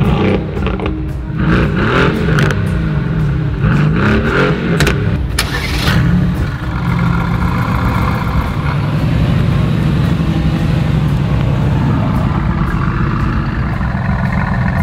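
Mercedes-AMG GT R's twin-turbo V8 being driven hard while drifting: the revs rise and fall repeatedly over the first few seconds, then hold at a more even pitch.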